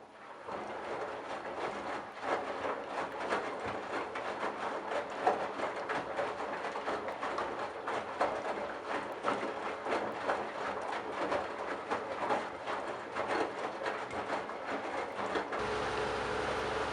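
Candy Bianca washing machine drum turning, with wet towels tumbling and water sloshing and knocking inside it. About a second before the end it changes to a steadier motor hum.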